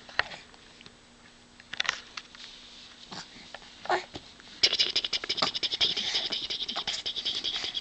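A baby mouthing and sucking on his fingers: scattered wet clicks at first, then, from a little past halfway, a fast, continuous run of crackly smacking and slurping sounds.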